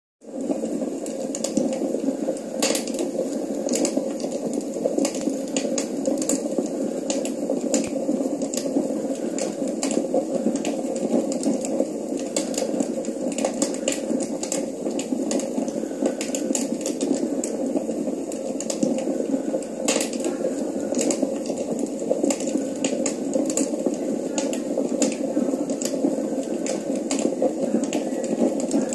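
Crackling fireplace sound played through a television's speakers: a steady rushing hiss with frequent irregular sharp pops and snaps.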